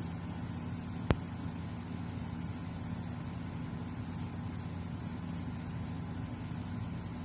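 A steady low hum with no rise and fall, and one sharp click about a second in.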